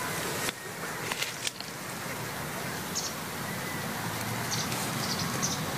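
Steady outdoor forest background noise with a low rumble, faint rustling in the undergrowth and a few brief, faint high chirps.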